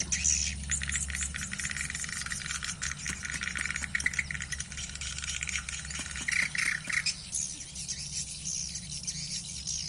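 Swiftlet call-sound recording (the lure sound used to attract edible-nest swiftlets) playing: dense, rapid swiftlet twittering and clicking chirps, which thin out about seven seconds in, over a steady low hum.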